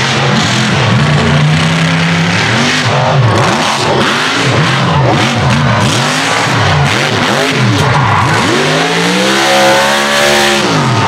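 Mega mud truck's engine revving hard under full throttle work, its pitch swooping up and down about once a second. Near the end comes one longer rev that climbs and falls back.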